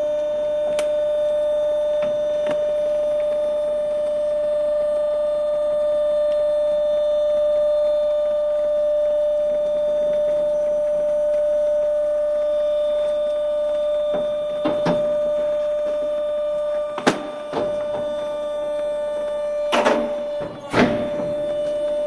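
Cardboard and paper trash compactor running with a steady high-pitched motor hum, broken by a few sharp knocks and cracks, most of them in the last eight seconds.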